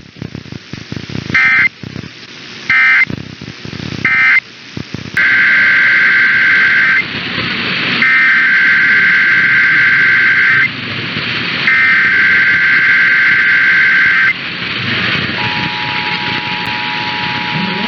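EAS digital data tones: three short warbling bursts, the end-of-message code closing one test, then three longer bursts, the SAME header opening the next test. About 15 s in, the steady two-tone EAS attention signal begins, all over a background hiss.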